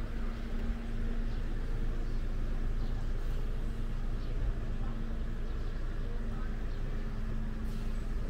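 Street ambience: a steady low rumble with a droning hum that fades in and out.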